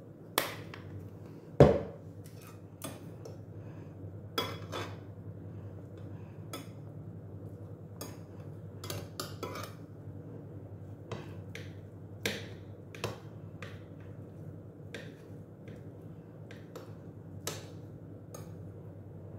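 Dishes and cutlery clinking and knocking on a table: scattered sharp clicks every second or so, the loudest a heavier knock about two seconds in, over a steady low hum.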